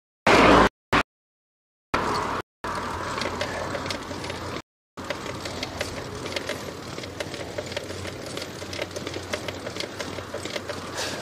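A bicycle ridden along a road, with rapid mechanical ticking and rattling over a steady rush of tyre and wind noise. The audio cuts in and out in short dropouts during the first two seconds and again briefly around five seconds.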